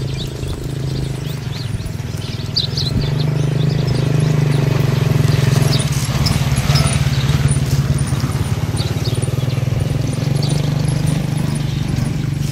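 A motor running steadily as a low hum, growing louder about three seconds in, with small birds chirping over it.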